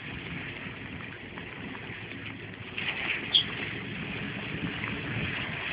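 Ural 4320 truck's diesel engine running as it wades through deep water, heard as a steady rumble and hiss with water churning around it. One short high squeak about halfway through.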